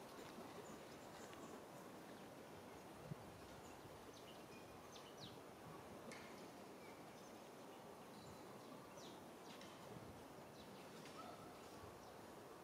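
Near silence: faint steady outdoor background hiss with a few faint, short high chirps scattered through it and a single small click about three seconds in.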